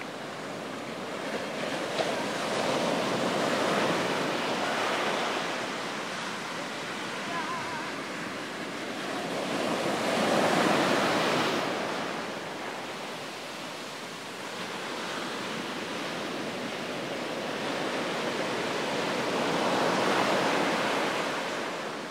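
Ocean surf breaking on a beach: a steady wash of waves that swells and ebbs three times, loudest about ten seconds in.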